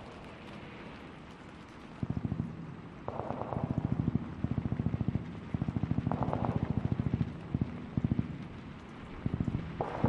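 Distant automatic gunfire: long bursts of rapid shots, about ten a second, starting about two seconds in, with short pauses and a few single shots between bursts, over a steady background hiss.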